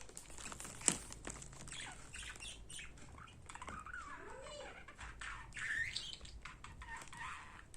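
Budgerigar chattering and chirping in short rising and falling calls, mixed with small clicks and rattles of the plastic hair clips it is playing with. A sharper click comes about a second in.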